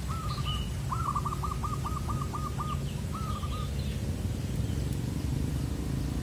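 Zebra dove (perkutut) cooing: a short phrase, then a run of about eight quick repeated notes, then another short phrase, over a steady low rumble.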